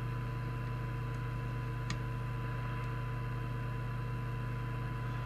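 Steady low hum with a faint, steady 1 kHz tone and hiss from an FM CB receiver picking up a weak 1 kHz-modulated test signal during receiver alignment. There is a tiny click about two seconds in.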